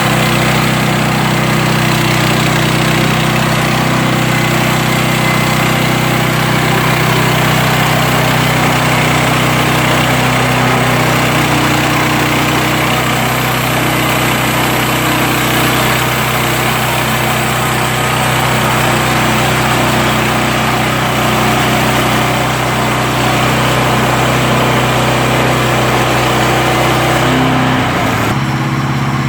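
A sawmill's engine running steadily at a constant speed, its note shifting slightly near the end.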